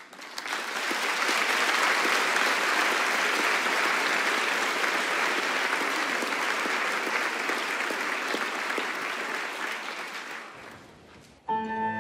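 Concert audience applauding, building quickly, holding steady and then dying away about ten and a half seconds in. Just before the end the orchestra comes in with held notes.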